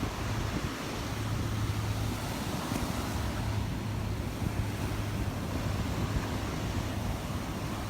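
Gulf surf washing onto the beach, with wind buffeting the microphone and a steady low hum underneath.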